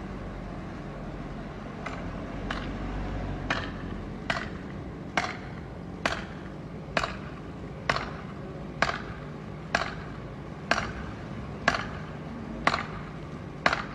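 Rhythmic chopping blows on wood, about one a second, starting about two seconds in and getting louder, over a low steady hum.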